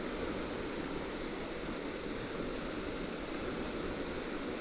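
Steady rushing of a river flowing close by.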